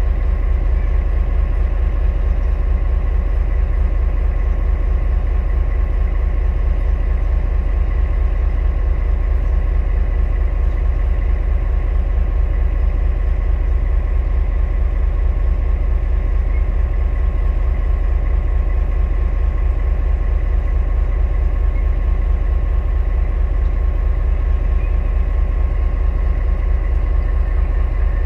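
Diesel engine of a Taiwan Railway R20-class diesel-electric locomotive idling while standing still: a steady, heavy low rumble with a thin steady whine on top.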